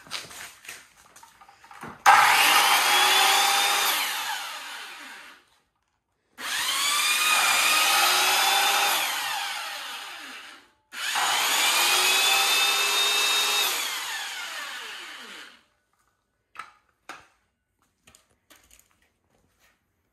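A DeWalt corded circular saw and a second corded power tool running together, started three times: each run spins up with a rising whine, runs free for a few seconds, then winds down after switch-off. Both are powered from a 12 V battery bank through a low-frequency inverter, which takes the motors' start-up surge without a soft start.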